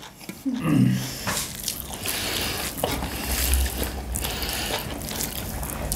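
Mukbang eating sounds of people eating rice and curry with their hands: wet chewing and mixing of food with many small clicks. A brief vocal hum comes just under a second in.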